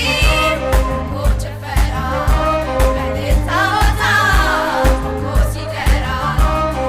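A song with a singing voice over a steady drum beat, about two beats a second.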